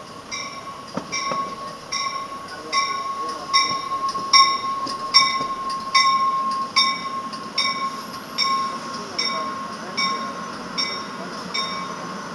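Warning bell on an NJ Transit Comet V cab car ringing steadily, a little over one strike a second, as the train pulls into the station. It grows louder as the cab car passes and then fades, over the rumble of the passing passenger cars and a steady high squeal.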